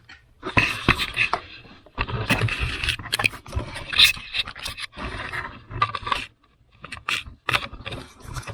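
Irregular scraping and rubbing with small clicks and knocks, in uneven bursts: hands handling hoses, clamps and plastic parts in a car's engine bay.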